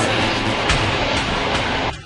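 Dance music with a steady beat, dropping away abruptly near the end.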